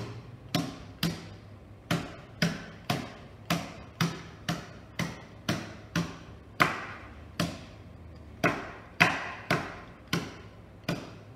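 A rolling pin held upright knocking down on mini pretzels sealed in a plastic freezer bag on a table, about two knocks a second, crushing the pretzels coarsely. Two knocks, about two thirds of the way through and again near the end, are louder than the rest.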